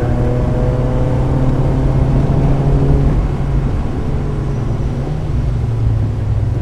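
1995 Mazda Miata's 1.8-litre four-cylinder engine running under load on track. Its pitch falls gently over the first three seconds, breaks off briefly, then runs on at a steadier pitch.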